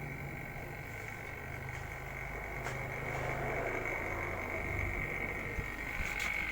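A steady low machine hum with a constant high whine over it and a few faint clicks, growing a little louder about halfway through.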